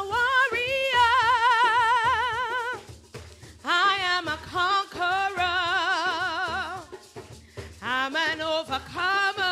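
A solo female voice singing a gospel praise song, holding long notes with a wide vibrato in three phrases with short breaths between them.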